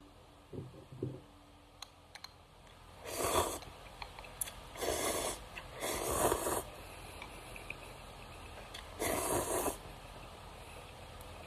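A person slurping instant noodles in broth, sucking them up from chopsticks with four loud slurps of about half a second each.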